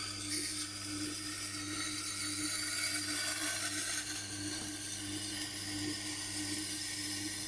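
Tormek wet grinder running at a steady hum while a cleaver's edge is ground on its SG250 aluminium oxide stone, freshly dressed to a coarse grit, giving a continuous rasping hiss.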